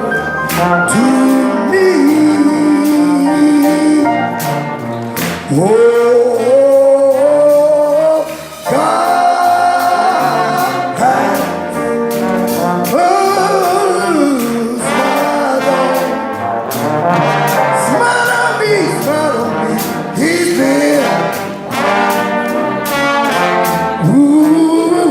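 Live music: a brass instrument, heard as a trombone, carries a melody with gliding notes over singing and a steady drum beat.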